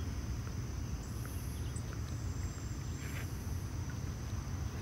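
Insects calling: a steady high-pitched buzz, with a higher pulsed trill repeating every couple of seconds, over a low steady rumble.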